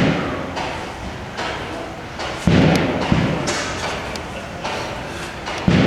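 1917 Snow twin-tandem, double-acting natural-gas engine running slowly. It gives heavy thumps every couple of seconds, two of them about half a second apart, over a steady clatter of its running gear.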